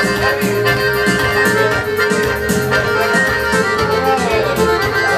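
Balkan folk dance music without vocals: accordion-led melody over a steady beat and bass, with one long held note.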